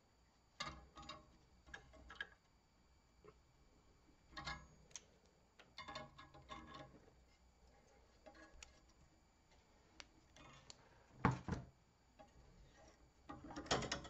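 Faint, scattered metallic clicks and knocks of pliers and a locking wrench working the wing nuts of a refrigeration pinch-off tool to loosen it from a copper process stub. The loudest knock comes near the end.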